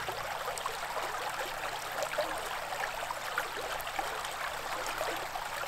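Small shallow creek running over its bed, a steady babbling trickle of water with small splashes through it.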